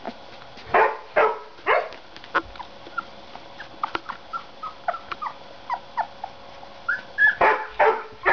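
Young puppies whimpering and yipping: a few louder yelps about a second in and again near the end, with many short high squeaks in between.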